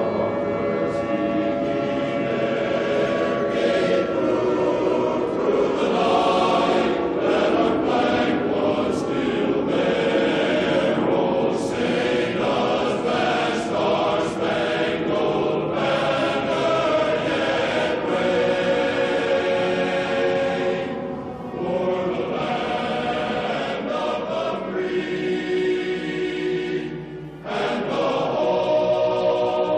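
A choir singing slow, held chords, with a short break in the singing about 27 seconds in.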